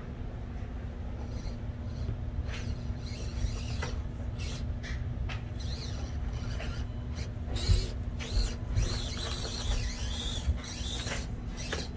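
Deadbolt RC rock crawler's electric motor and geared drivetrain running at crawling speed, with scattered clicks and knocks as the truck works over the terrain. A few louder knocks come in the second half.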